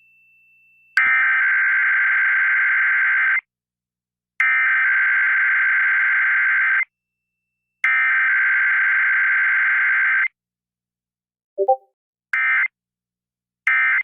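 Emergency Alert System SAME header: three loud, identical bursts of buzzy two-tone digital data, each about two and a half seconds long and about a second apart, carrying the alert's coded header. A short low blip follows, then two short data bursts near the end, the start of the end-of-message code.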